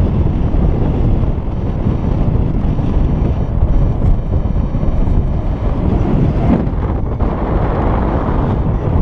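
Airflow of paraglider flight rushing over the camera's microphone: a loud, steady, low wind buffeting.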